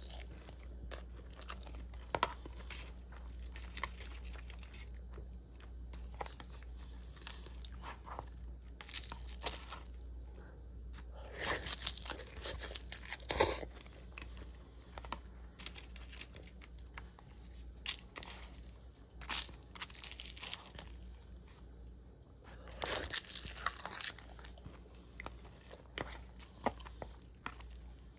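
Eating sounds: crisp crunching and chewing of a rice bowl topped with nori, coming on and off, with a wooden spoon scraping and knocking in a plastic bowl.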